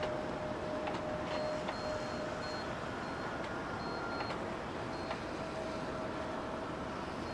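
Airbus A320neo jet engines running as the airliner rolls out along the runway after landing, heard from a distance as a steady rushing noise with a faint hum. Faint, broken high-pitched tones come and go over it.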